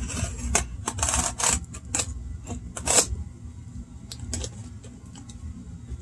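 Utility knife slicing through packing tape on a cardboard box: a run of sharp scraping, crackling strokes, the loudest about three seconds in. After that come lighter taps and rustles as the tape is handled.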